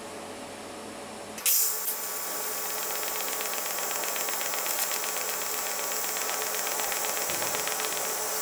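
TIG welding arc struck with a sudden start about a second and a half in, then a steady hissing buzz as a cast iron filler rod is run into a cracked cast iron bracket on DC electrode negative. A low steady machine hum comes before the arc.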